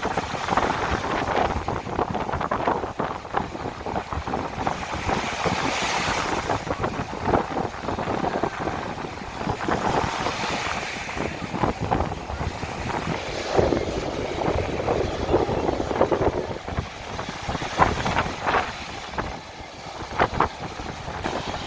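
Sea waves washing ashore, swelling in surges every few seconds, with wind rumbling on the microphone.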